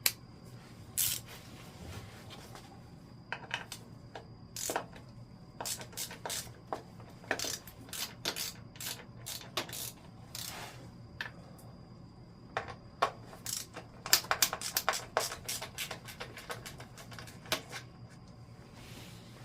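Hand tools and small metal parts clicking and clinking as the ignition coil's mounting nut is undone on a Honda CL175: irregular sharp clicks, with a quick run of them about three-quarters of the way through.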